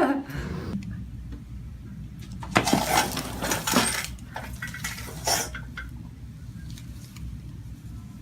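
Joints cracking during a chiropractic spinal adjustment: several sharp pops, the first cluster about two and a half seconds in and a couple more over the next few seconds.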